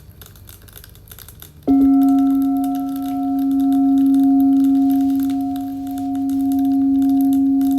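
A crystal singing bowl is struck once, just under two seconds in, and rings on in a steady low tone with fainter higher overtones, its loudness swelling and fading in slow waves. Faint crackling of a bonfire sits under it and before the strike.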